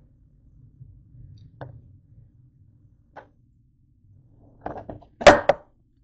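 Handling knocks on a kitchen counter: a couple of light clicks, then a cluster of clunks about five seconds in, the loudest a sharp thunk, as things are moved around the bowl.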